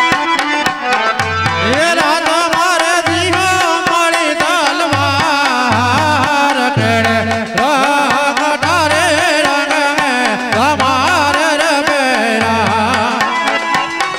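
Gujarati devotional folk music: deep hand-drum strokes in a repeating pattern under a wavering, heavily ornamented melody line that comes in about two seconds in.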